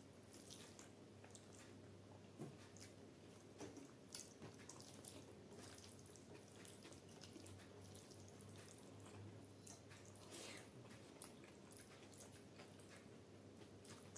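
Faint wet squishes and small clicks of fingers pressing and mixing rice with curry on a steel plate, with soft chewing between them.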